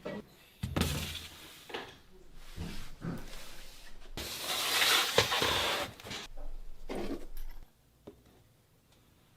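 Workshop handling sounds: a few light knocks and clinks, then a loud hiss lasting about two seconds, and a couple more knocks before it goes quiet.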